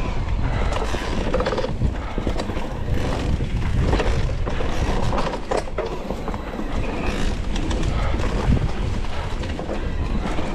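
E-mountain bike riding over a rough dirt trail: tyres rumbling on the ground, with irregular knocks and rattles from the bike as it goes over bumps.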